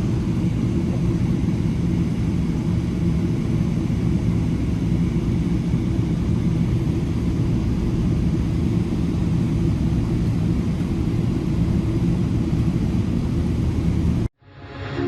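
Steady cabin noise inside a Boeing 787 Dreamliner taxiing after landing: an even rumble from the engines at idle and the air system, with a low steady hum. It cuts off abruptly near the end.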